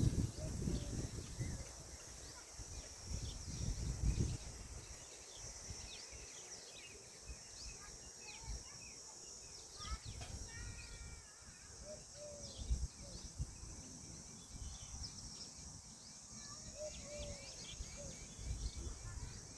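Many short bird chirps over a steady high hiss in the open, with a few lower single notes in the middle. Bursts of low rumble come at the start and again near the end.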